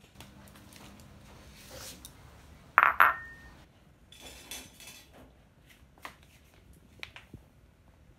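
A ceramic dog bowl and a stainless steel cup clinking and clattering on a tiled floor as milk is about to be poured. Two sharp knocks about three seconds in are the loudest, followed by a lighter rattle and a few faint clicks.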